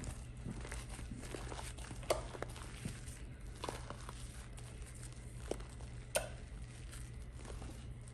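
Fluffy slime being kneaded by hand: scattered soft squishes and small sticky pops, the sharpest about two seconds in and again near six seconds, over a low steady hum.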